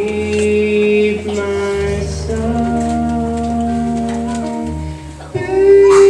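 Live music: a children's choir singing long held notes over a steady instrumental accompaniment. Near the end the sound dips briefly, then a new, louder sung phrase begins.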